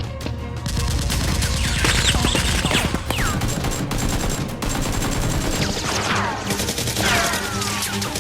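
Gunfire sound effects: rapid automatic fire with several falling whistles like bullets ricocheting, laid over a low music bed.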